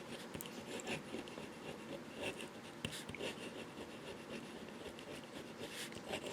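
Faint scratching of a Visconti Homo Sapiens fountain pen's fine nib writing on paper, a run of light, irregular strokes.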